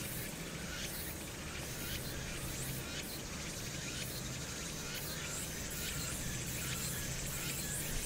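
Mountainside ambience: wind rumbling on the microphone under a steady, high-pitched insect chorus that wavers irregularly.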